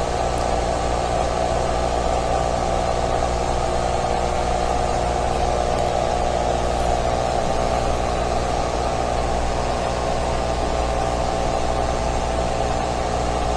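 A steady, unchanging droning hum with a layer of hiss: an ambient drone from the horror animation's soundtrack.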